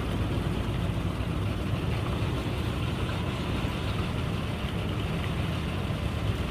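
Boat engine running steadily: a low, even drone with a steady hiss above it.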